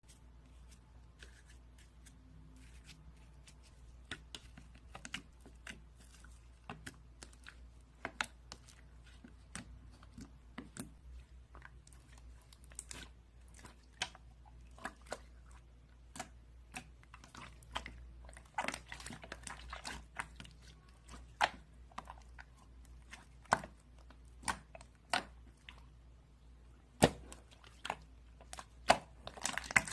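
Marbled slime being squished and played with by hand, making irregular sharp clicks and pops, sparse at first and more frequent and louder in the second half.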